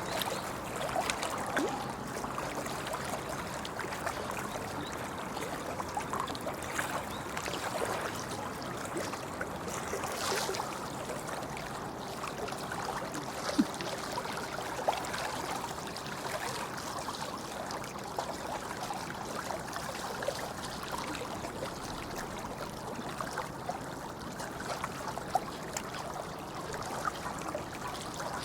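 Shallow river babbling over stones: a steady rush of water dense with small gurgles and splashes, with a few sharper drips about halfway through.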